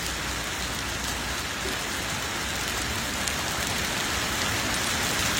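Heavy rain pouring down and hitting hard surfaces, a steady dense hiss that grows slightly louder toward the end.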